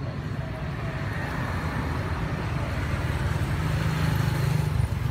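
Steady rumble of a passing motor vehicle, growing louder toward the end.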